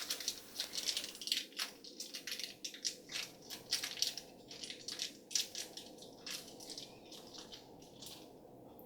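A small plastic surprise bag being torn open and crinkled by hand: a run of irregular sharp crackles that thin out near the end.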